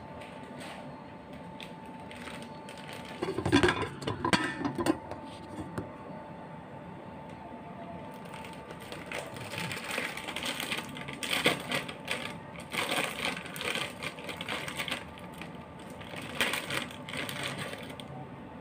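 Plastic instant-noodle packet crinkling in repeated rustling bursts as it is handled and opened, over a steady faint hum. A few louder knocks and rustles come about three to five seconds in.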